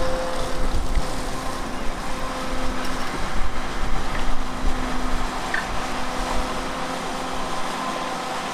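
Hyundai HX220 tracked excavator running under load as it swings and empties its bucket: a steady diesel-and-hydraulic drone with a constant pitched whine over it.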